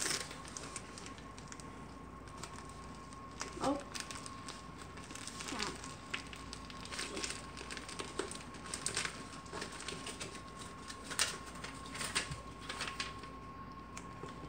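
Plastic shipping mailer crinkling and rustling as it is handled, with scattered small clicks and taps of fingers and sticky notes on it. A faint steady high tone runs underneath.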